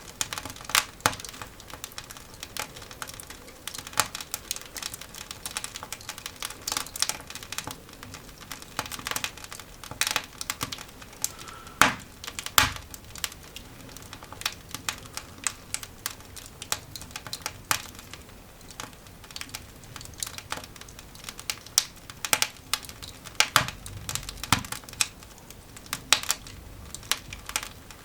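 A newly lit coal fire in a cast iron dog grate crackling, with irregular snaps and pops and two louder pops about twelve seconds in.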